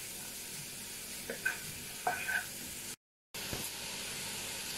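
Shredded carrot, leek and green chilli sizzling in butter in a wok while a spatula stirs them, with a couple of short scrapes against the pan between about one and two and a half seconds in. The sound cuts out for a moment about three seconds in, then the sizzling goes on.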